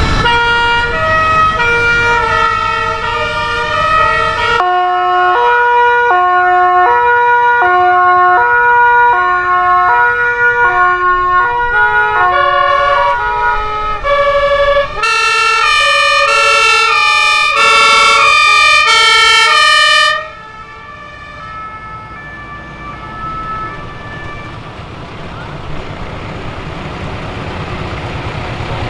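German two-tone fire-service horns (Martinshorn) on passing fire vehicles, each switching back and forth between two notes. One horn sounds first. About fifteen seconds in, a louder, brighter two-tone horn takes over for about five seconds and then cuts off, leaving the engines of passing fire trucks.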